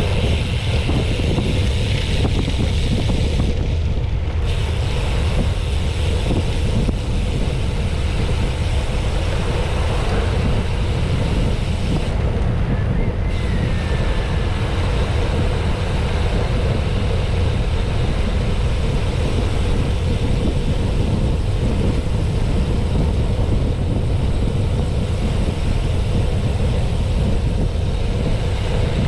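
Steady low rumble with wind noise on the microphone, with a faint steady hum running through it.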